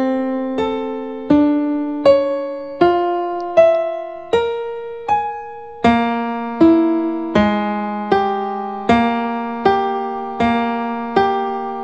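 Ableton Live grand piano instrument playing MIDI-triggered notes about every three-quarters of a second, each struck and left to ring. The pitches step up and down as the scale's transpose and base are changed.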